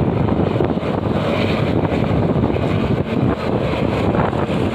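Wind buffeting the microphone over steady road and engine noise from driving at speed close behind a coach bus.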